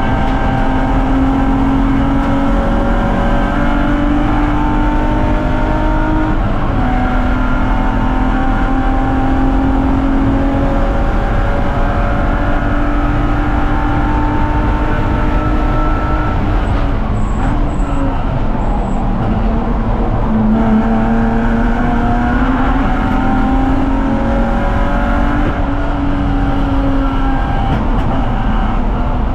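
BMW 330ci race car's 3.0-litre inline-six engine at racing speed, its pitch climbing through each gear and dropping back at the shifts, easing off under braking about halfway through, then pulling hard again.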